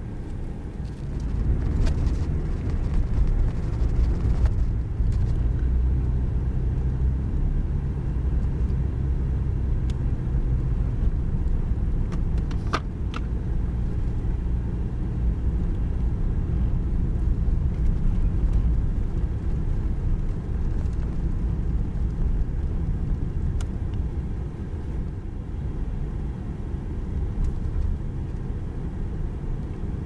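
Car on the move: a steady low rumble of road and engine noise, with a single sharp click about thirteen seconds in.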